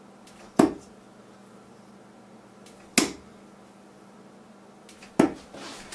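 Three 26-gram One80 Rowby John Rodrigues darts striking a bristle dartboard one after another, each a short sharp thud, a little over two seconds apart.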